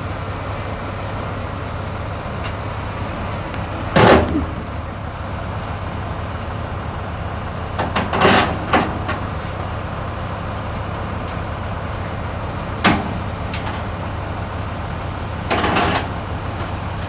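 Engine running steadily, broken by loud knocks and bangs about four seconds in, twice around eight seconds, near thirteen seconds and again near the end.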